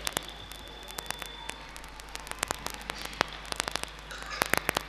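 Pause in a talk: a steady low hum and hiss, with many irregular sharp clicks and crackles scattered throughout.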